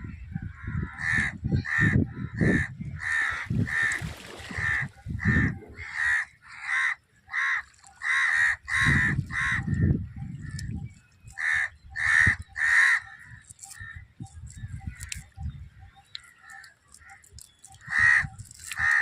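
Crows cawing over and over, in quick runs of short harsh calls with a few pauses between the runs, over a low rumbling noise.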